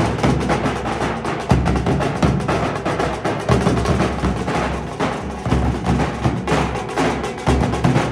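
Dhol drumming: a fast, dense run of strokes with deep bass hits underneath.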